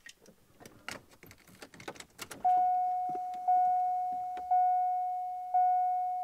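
Keys jangling and small clicks inside a C5 Corvette, then from about two and a half seconds in the car's electronic warning chime, a clear tone repeating about once a second, each ding fading before the next.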